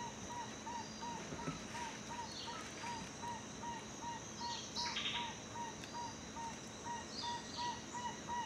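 Bird calls in forest ambience: a steady series of short, evenly spaced notes, about three a second, with a few scattered higher chirps from other birds.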